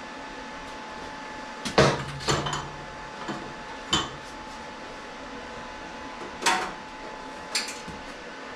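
About six sharp metal clanks and knocks at uneven intervals from steel being handled, the loudest about two seconds in, over a steady hum.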